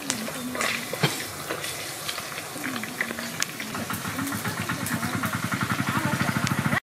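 Small fish frying in hot oil in a pot over a wood fire, sizzling and crackling with scattered pops. From about four seconds in, a steady engine-like throb grows louder beneath it.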